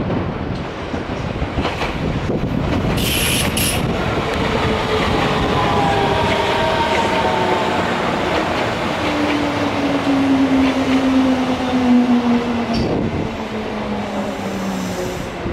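Kintetsu electric commuter train running along the platform with a loud steady rumble. Its motor whine falls slowly and evenly in pitch over about ten seconds as the train slows. A brief high hiss comes about three seconds in.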